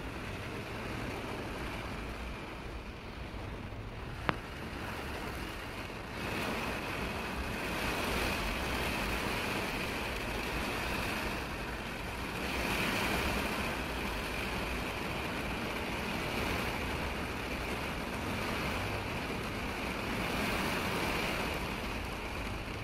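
Typhoon rain and wind: a steady hiss that swells louder at times, with one sharp tick about four seconds in.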